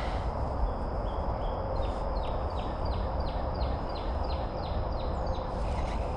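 A bird calling: a run of about ten short, high notes, each sliding downward, about three a second, over a steady rushing noise from the flowing creek.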